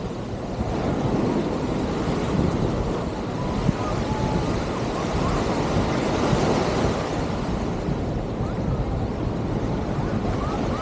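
Surf washing onto the beach, a steady rush with wind buffeting the microphone.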